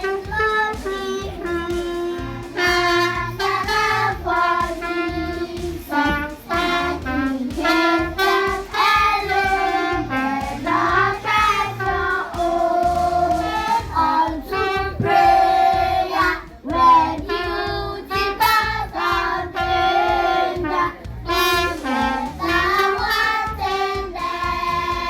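Children singing a song over musical accompaniment with a steady beat.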